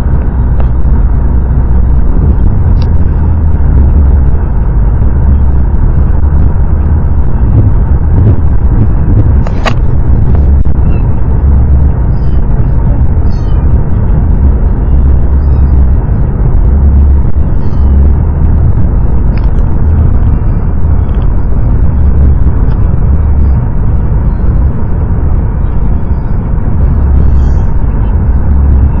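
Car running on the road, heard from inside the cabin: a loud, steady low rumble of engine and road noise, with a few faint high squeaks now and then.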